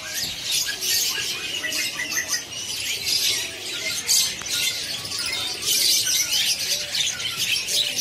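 Many small caged birds chirping and twittering at once, a dense, continuous high chatter of overlapping calls.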